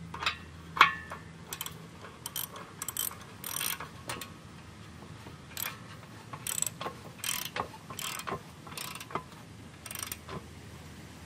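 Ratchet wrench clicking in short strokes at the hub of a feed grinder's pulley, with metal clinks. There are a dozen or so uneven bursts, the sharpest about a second in.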